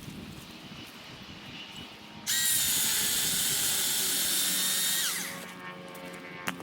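Milwaukee Fuel battery chainsaw whining at full speed for about three seconds, starting suddenly and holding a steady pitch, then falling in pitch as it winds down when the trigger is released. A single sharp click near the end.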